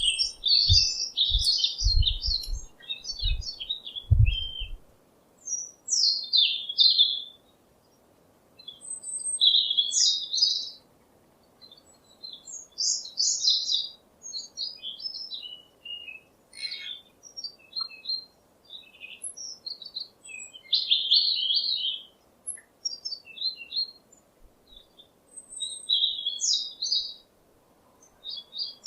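Small songbird singing in short, varied phrases of quick chirps and trills, a new phrase every second or two with brief pauses between, and a few low thumps in the first few seconds.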